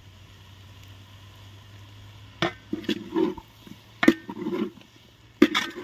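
Chilli chicken being stirred in a pan: a few scraping knocks of the spoon against the pan from about halfway in, over a steady low hum.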